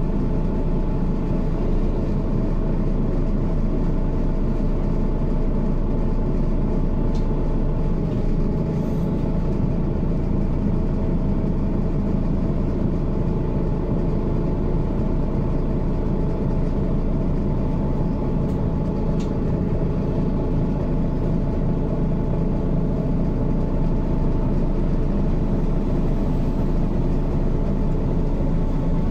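Diesel engine of a 2005 Mercedes-Benz Citaro O530G articulated bus, heard from on board, running steadily at an even pitch with no revving or gear changes.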